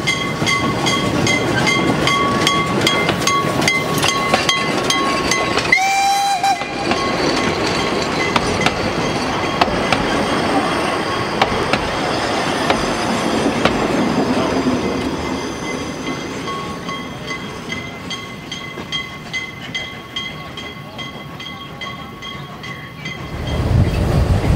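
Narrow-gauge steam locomotive I K 54 working past, with a steady pulsing ringing tone behind it and a short whistle blast about six seconds in. Its coaches then roll by with a run of clicks from the wheels over the rail joints, fading away. Near the end a louder low rumble of riding aboard the train sets in.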